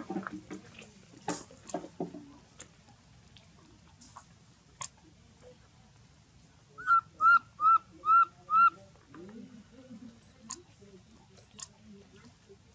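Baby macaque calling: a quick run of five short, high, arched coos. Scattered light clicks and rustles come before the calls.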